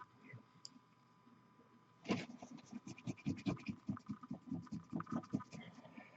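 A stiff, ragged drybrush scrubbed back and forth in rapid scratchy strokes, about six a second. The strokes start about two seconds in and stop shortly before the end.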